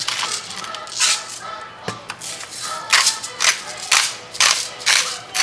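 Spice grinder twisted in short, crunchy strokes, about two a second, grinding cracked black pepper and sea salt over the dish, with background music.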